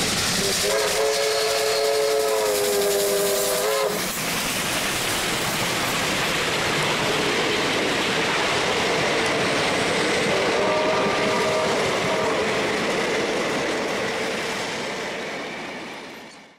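Steam locomotive passing with a train of carriages, its whistle of several notes sounding twice: a blast of about three seconds starting about a second in, and a shorter one around ten seconds in, over the steady noise of the passing train. The sound fades out at the end.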